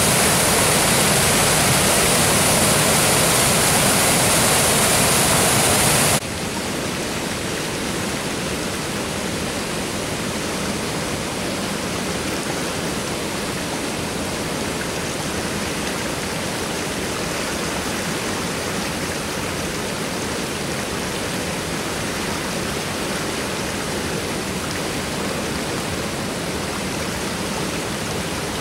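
Floodwater rushing over a mill dam spillway and churning below it, a steady loud rush of falling water. About six seconds in it drops abruptly to a lower, duller rush that holds steady.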